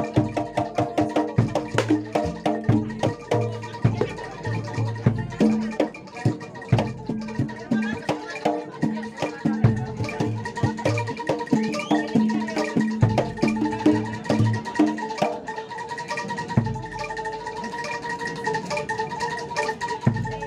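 Javanese gamelan music accompanying a kuda lumping dance: hand drums (kendang) and tuned mallet percussion playing a fast, busy rhythm, with a steady held note joining about halfway through.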